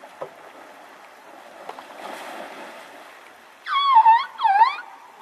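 Asian elephant splashing in a river, then giving two loud, high-pitched trumpeting calls with a bending, dipping pitch in the last second and a half, the sound of an agitated elephant throwing a tantrum.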